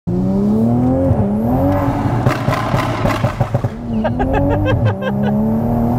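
Tuned MK5 Toyota GR Supra's B58 turbocharged straight-six accelerating hard, heard from inside the cabin. The engine note climbs, drops with an upshift about a second in and again near the end, and climbs once more. A run of sharp crackles comes in the middle.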